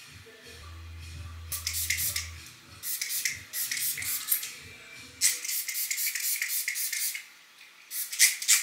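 Hair perfume spritzed from a small spray bottle onto styled hair in a run of short hissing sprays, with faint music underneath.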